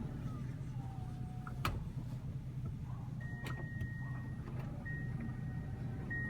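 Toyota Alphard (30 series) power sliding door working: a steady low hum, a sharp click about a second and a half in, then from about three seconds in a steady high beep tone that breaks off twice and starts again.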